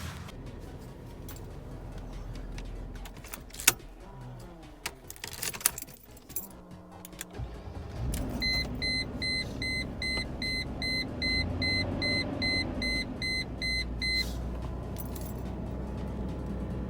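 Keys jangling and clicking in the ignition of a 2002 Mercedes-Benz ML320. About eight seconds in, its 3.2-litre V6 starts and runs at idle, the test of a newly fitted starter. For about six seconds a dashboard warning chime beeps at about two and a half beeps a second.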